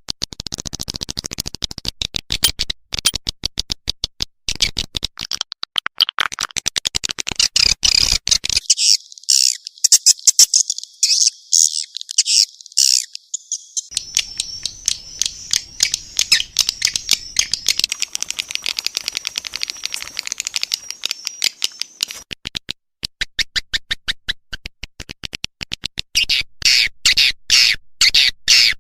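Swiftlet call recording used to lure swiftlets into a bird house: rapid, dense trains of high chirps and clicks that pause briefly now and then. A thin, steady high whistle runs through the middle of the stretch.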